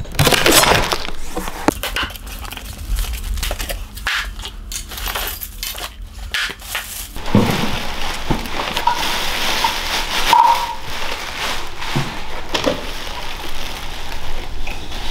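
A cardboard box being opened: a knife slitting the packing tape and flaps with scratchy clicks and scrapes, then, from about halfway, a plastic bag crinkling and rustling as a small engine is lifted out of it.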